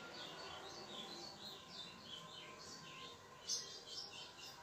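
Faint, high chirps repeating several times a second over a low hiss, with one brief louder sound about three and a half seconds in.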